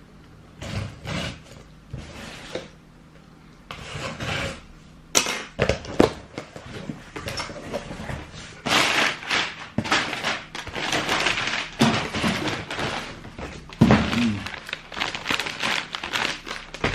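Packaging being handled: a few sharp knocks and thunks about five to six seconds in, then rustling and crinkling of the plastic bag wrapped around a trainer.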